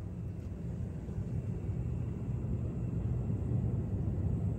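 Pair of budget USB-powered variable-speed cabinet cooling fans running on low: a steady low drone, more of an air whoosh than a high-speed whine.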